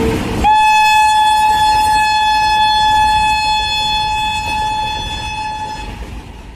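Train horn sounding one long steady blast of about five seconds over the low rumble of a train, starting about half a second in, then the whole sound fading away near the end.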